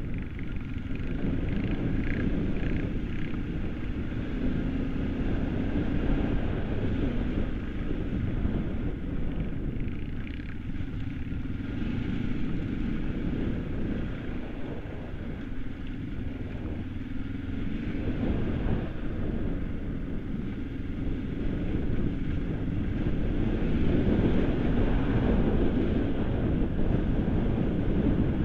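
Kawasaki KLE 500's parallel-twin engine running under way as the dual-sport motorcycle rides a loose, rocky gravel track, with wind noise on the microphone. The engine note gets a little louder near the end.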